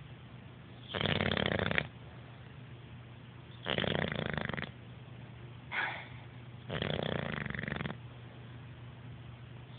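A sleeping dog snoring: three snores of about a second each, roughly every three seconds, with a short, fainter breath sound just before the third.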